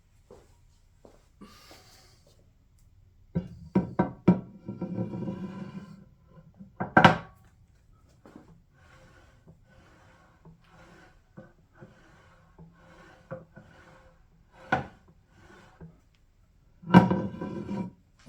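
Hand scraper strokes on the cast-iron base of a Grizzly G0519 milling machine, as the ways are scraped to fit the saddle. A series of scrapes, some short and some drawn out, several ringing with a tone, the loudest about seven seconds in and near the end.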